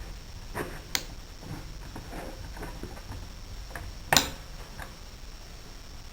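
Small metal starter-motor parts clicking and tapping together as they are handled and fitted, with a few sharp clicks and one louder knock about four seconds in.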